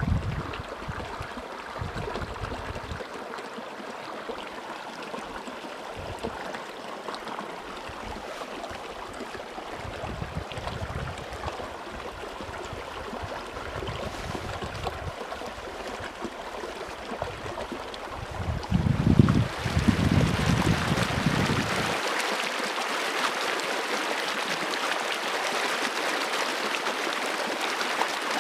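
Running stream water: a steady rush and murmur of flowing water. Low gusts of wind buffet the microphone through the first two-thirds, strongest about two-thirds of the way in. After that the wind stops and the water sounds brighter and steadier.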